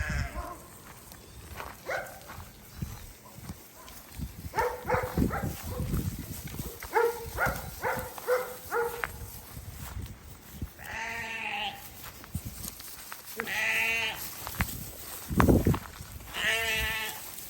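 Sheep bleating: clusters of short calls in the middle, then three long, wavering bleats in the second half, with a heavy low thump just before the last bleat.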